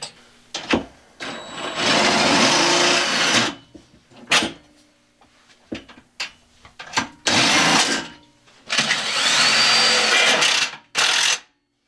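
Cordless impact driver running in four bursts, the two longest about two seconds each, driving long screws to fasten a battery hold-down in the battery box, with clicks and knocks of handling between the bursts.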